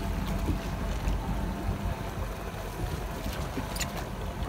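Fishing boat's engine running steadily with a low hum, wind buffeting the microphone over it, and a couple of faint clicks near the end.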